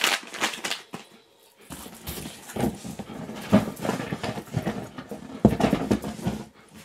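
Husky dog sounds right at the microphone, amid rustling and handling noise. A plastic snack bag crinkles briefly at the start.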